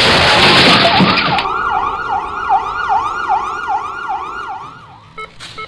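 A loud burst of noise for about the first second and a half, then an ambulance siren in a fast yelp, its pitch rising and falling about three times a second, fading out near the end.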